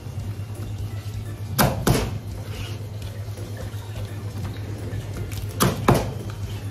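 Kitchen knife chopping through fan lobster (uchiwa-ebi) shells onto a plastic cutting board: two pairs of sharp knocks, about one and a half seconds in and again near the end. A steady low hum runs underneath.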